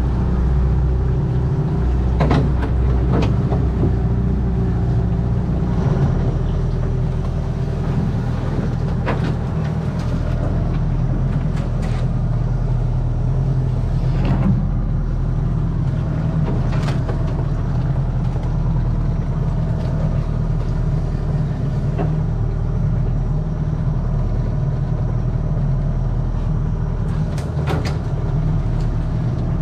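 Small outboard motor running steadily, driving an aluminium dinghy, with occasional sharp clicks and scrapes as overhanging mangrove branches brush the boat.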